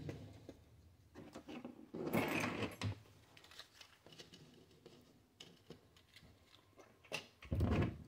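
Handling noise: scattered small clicks and knocks, a louder rustle about two seconds in, and a low thump near the end as a hand comes close to the microphone.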